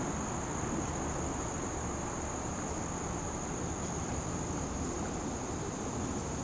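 Insects, likely crickets, chirring in a steady high-pitched chorus without pause, over a low rumble of wind or background noise.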